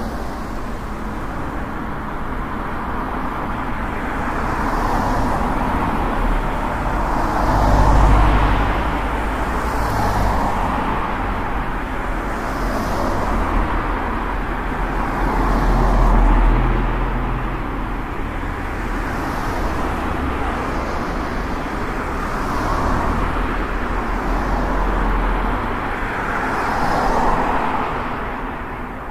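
Road and traffic noise recorded from a moving vehicle in city traffic: a steady rush with a low rumble that swells louder about eight seconds in and again near sixteen seconds.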